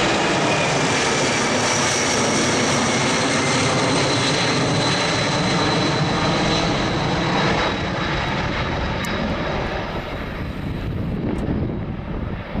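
Boeing C-17A Globemaster III's four Pratt & Whitney F117 turbofans at takeoff power as the airlifter climbs away, a steady jet noise with a faint whine sliding slightly lower in pitch. It fades over the last few seconds as the aircraft recedes.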